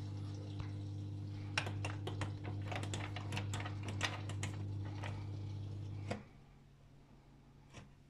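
AEG 64740VFL washing machine's drain pump humming steadily, the only part running while the machine shows error E24. The hum stops about six seconds in, leaving a fainter hum. Over it, from about a second and a half to five seconds in, comes a quick run of plastic clicks from control-panel buttons being pressed.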